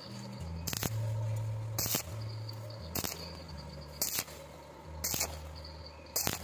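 Stick welding arc crackling and sizzling steadily as a coated electrode lays a fillet bead on square steel tube. Background music with a beat about once a second plays over it.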